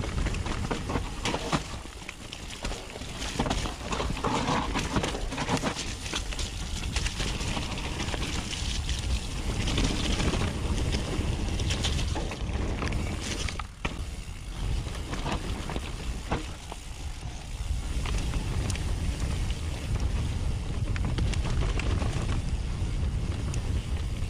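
Wind rushing over a GoPro's microphone during a fast downhill mountain-bike descent, with the tyres on dirt and rock and the Nukeproof Mega 290's chain and frame rattling and clattering continuously over rough ground.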